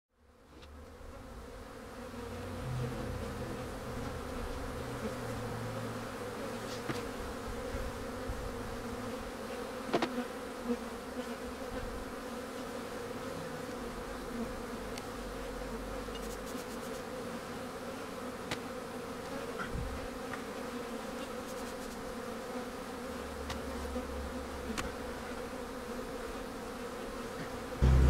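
Honey bees buzzing around an opened hive: a steady hum of many bees, with a couple of faint knocks about ten seconds in.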